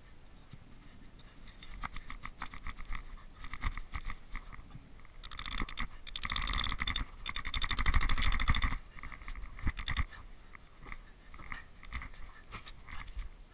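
Metal tent peg being worked into packed snow to pin down a lavvu's skirt: repeated scraping and crunching of snow, densest and loudest from about five to nine seconds in.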